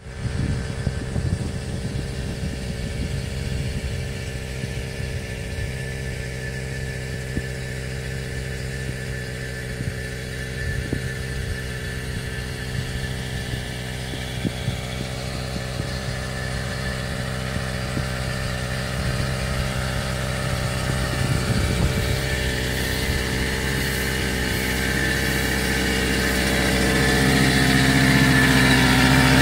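Small engine running steadily at an even speed, getting louder over the last few seconds.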